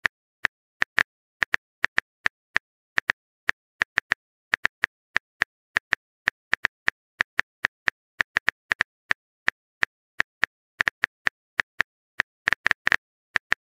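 Keyboard typing clicks from a texting app, one short click for each letter as a message is typed, at about three a second with an uneven rhythm and a quick flurry of clicks near the end.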